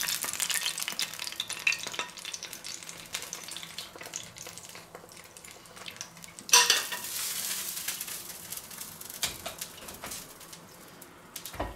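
Hot fat and meat juices sizzling and crackling in a just-used frying pan, slowly dying down. About six and a half seconds in there is a brief, louder sizzle as the hot pan juices are poured out over the mashed potatoes.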